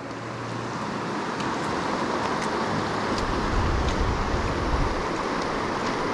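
Steady rush of a shallow river running over a rocky riffle, with a low rumble swelling for about two seconds in the middle.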